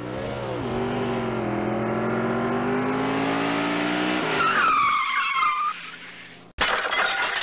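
Car engine revving with rising pitch, then tires screeching for about a second and a half, then a sudden loud crash about six and a half seconds in: a car-crash sound effect.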